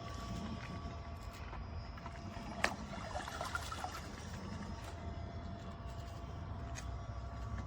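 Cordless pool vacuum motor running steadily underwater, a low hum with a faint steady whine, and water trickling around it. A single sharp click comes about two and a half seconds in.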